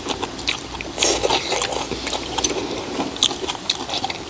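Irregular clicks and clinks of metal tongs and chopsticks against clam shells and the grill grate, mixed with chewing.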